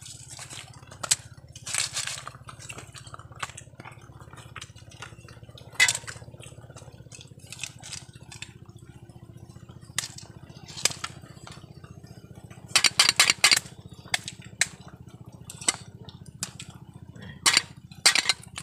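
Cooked sea snail shells clicking and clinking against each other and a metal bowl as hands pick through them, in scattered sharp clicks with a quick flurry about two-thirds of the way through, over a low steady hum.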